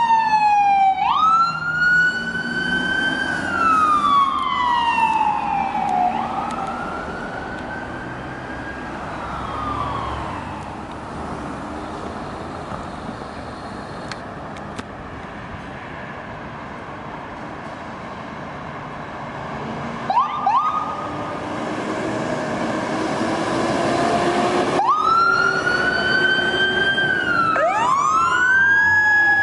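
Emergency vehicle sirens wailing. An ambulance's siren slowly falls and rises as it pulls away, fading over the first ten seconds. About twenty seconds in come two short chirps and a building diesel engine note from a fire engine pulling out, and then its siren starts a loud wail, joined by a second siren near the end.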